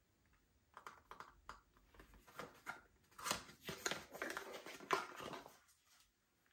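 Slime being squeezed and poked by hand: a run of small sticky clicks and pops that grows busier about three seconds in, then dies away near the end.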